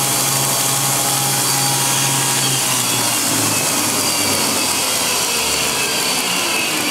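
Homemade 2x72 belt grinder running, its belt driven by a bench-grinder motor, giving a steady loud hiss. A low hum fades out about three seconds in.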